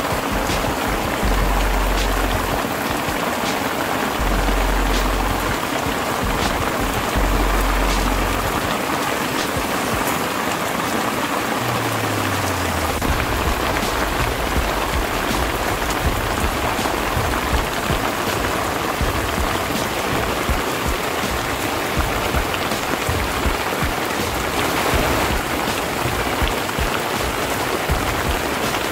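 Heavy rain falling steadily on a rice paddy and on a tarp shelter overhead: a dense even hiss with scattered drop taps. There are a few low rumbles in the first eight seconds.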